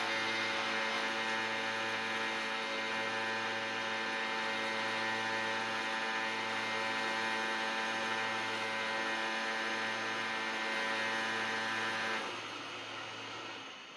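Two Somfy motorised Venetian blinds lowering together, their motors giving a steady, loud whining hum. About twelve seconds in, as the blinds reach the bottom, the louder motor cuts out while a quieter one runs on for about a second and a half before stopping. This fits the left blind's motor running a second or two longer than the right one's, a sign of the blind's uneven strings. The right blind is the very noisy one, which the owner judges unacceptable.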